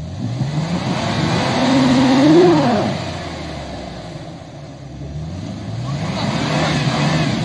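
Toyota FJ Cruiser's V6 engine revving hard twice under load while the SUV is stuck in deep snow. The pitch climbs to a peak about two and a half seconds in and drops off, then rises again near the end.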